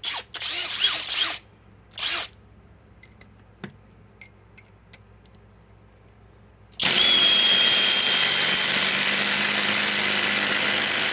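Flex cordless impact wrench hammering steadily for about six seconds, starting about seven seconds in, as it drives a 5 to 6 inch lag screw into very hard wood. Before it, a few short bursts of handling clatter and light clicks.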